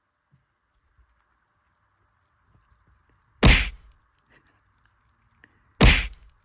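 Two loud whack sound effects, like comic punch hits, about two and a half seconds apart, over a faint steady hiss.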